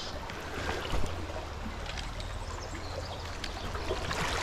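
Shallow river water flowing and trickling steadily, with a brief louder moment about a second in.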